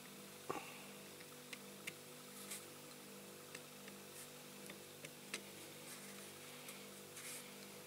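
Faint, scattered clicks and light taps of a small diecast model and tools being handled on a workbench, about eight in all, over a steady background hum.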